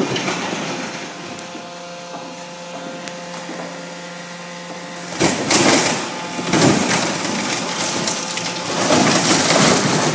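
Excavator grapple crushing and breaking up a small boat's thin hull: a steady machine hum at first, then from about five seconds in loud, irregular cracking and crunching as the hull is torn apart.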